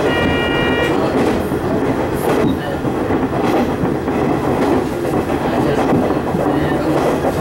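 KiHa 110-series diesel railcar running along single track, heard from inside at the front of the car: a steady rumble of engine and wheels, with irregular clicks of the wheels over rail joints. A brief high-pitched tone sounds during the first second.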